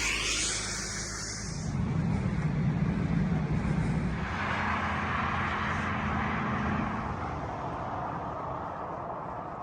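Road traffic passing: one vehicle fading away at the start, then another going by with engine hum and tyre hiss that swells about two seconds in and dies away toward the end.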